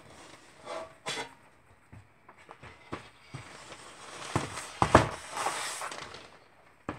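Sharp knocks and clacks as a wooden picture frame and a freshly cut glass sheet are handled on a hardboard work table, the loudest knock about five seconds in, with a brief scrape around it.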